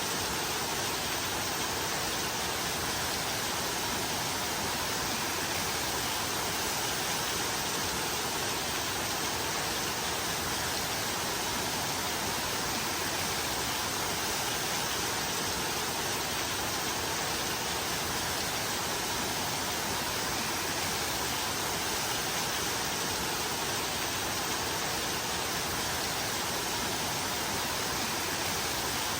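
Steady rain, an even unbroken hiss with no separate drops or gusts standing out.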